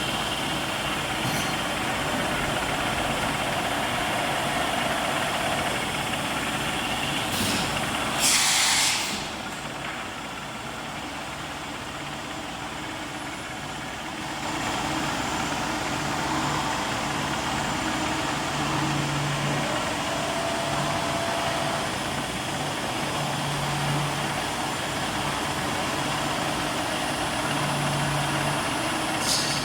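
Steady running noise of workshop machinery, with a short, loud hiss of air about eight seconds in. The noise drops for several seconds after the hiss, then picks up again.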